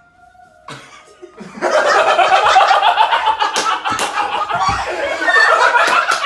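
A group of people laughing loudly, breaking out about a second and a half in, with a few sharp smacks or claps among the laughter.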